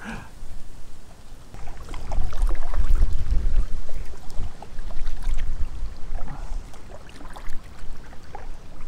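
Kayak being paddled: the paddle splashes and drips, with small knocks against the hull. Gusty wind rumbles on the microphone, strongest from about two to five seconds in.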